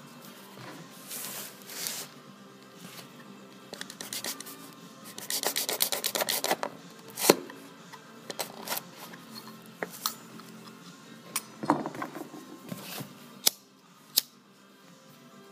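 Utility knife blade sawing through braided nylon rope: a quick run of short strokes in the middle. Scattered sharp clicks and knocks from handling the knife and rope follow, with one loud click near the end.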